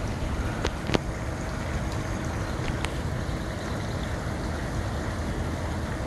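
Steady low rumble of outdoor air noise on the microphone with a faint steady hum from the spinning patio ceiling fans, broken by a few sharp clicks about a second in and again near three seconds.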